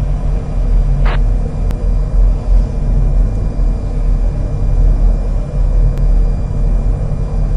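Steady low rumble of background ambience, with a brief higher sound about a second in and two faint clicks.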